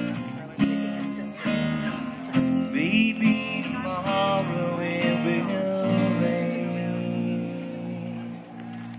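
Live folk band playing the instrumental close of a song: strummed acoustic guitar chords, with a lead line of bending notes in the middle, the sound sinking away near the end.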